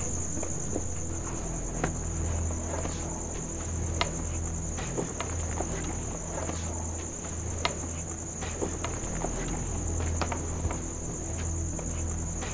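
Crickets trilling in one steady high note over a low hum, with scattered small sharp clicks.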